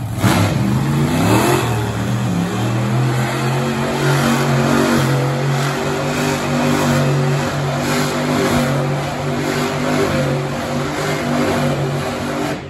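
Monster truck engine revving up over the first second and a half, then held at high revs at a steady pitch while the truck spins its tyres in the dirt; the sound cuts off suddenly at the end.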